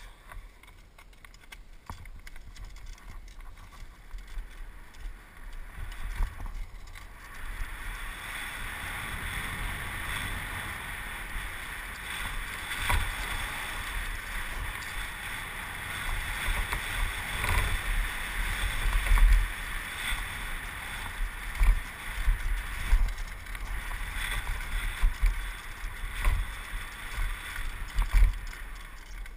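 Downhill mountain bike descending a dirt trail, recorded from a helmet camera: wind rushing over the microphone and tyres rumbling on dirt. The noise builds as speed picks up over the first several seconds, with repeated thumps and rattles as the bike hits bumps and lands.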